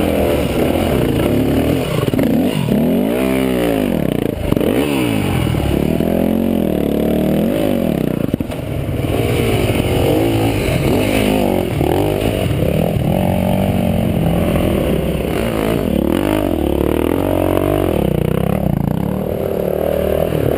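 Dirt bike engines revving hard as riders climb a steep rocky hill, the engine pitch rising and falling over and over as the throttle is worked.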